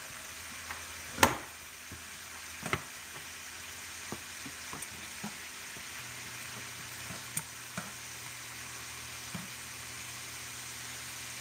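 Shrimp sizzling steadily in a hot frying pan, broken by scattered sharp clicks and taps of a silicone spatula and metal tongs against the pan and a glass bowl as the shrimp are lifted out; the loudest click comes about a second in.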